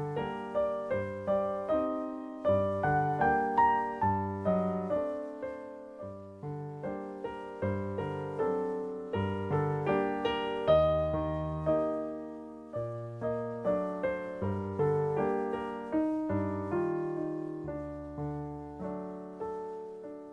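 Piano music playing steadily: a melody over chords, each note struck and then fading.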